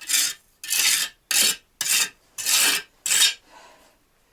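Steel bricklaying trowel scraping and spreading mortar, six rasping strokes in quick succession, then one faint one.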